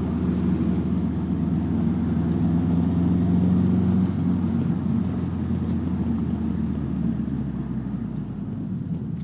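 Turbocharged 2.5-litre flat-four engine of a 2006 Subaru WRX with aftermarket exhaust, heard from inside the cabin while driving: a steady drone that eases off about four seconds in and fades as the car slows toward the end.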